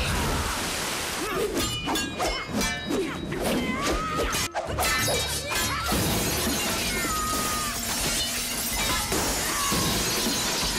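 Film fight-scene sound effects: a fast run of sharp metallic clashes with short ringing, as of swords striking. Then a steady crashing, shattering noise, with a music score underneath.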